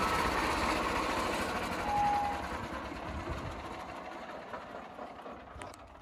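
13 hp petrol log saw running down after being switched off, its engine and 700 mm blade slowing and the noise fading away over several seconds, with a brief whine about two seconds in.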